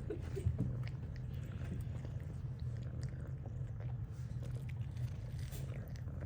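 A cat chewing and biting small pieces of chicken jerky, with scattered small crunching clicks over a steady low hum.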